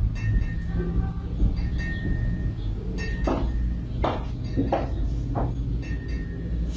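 Light metallic clinking and short ringing chime tones, as from a hanging wind chime, with four sharper clinks about halfway through, over a steady low hum.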